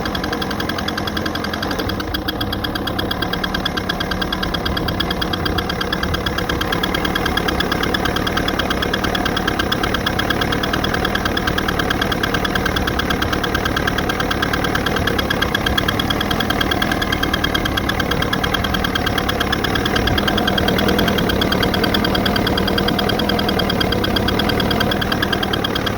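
Evinrude 88 SPL V4 two-stroke outboard motor running steadily with a fast, even ticking. The tick appeared after the powerhead was replaced with a remanufactured unit and has not gone away after 10 hours of break-in; its cause is unknown.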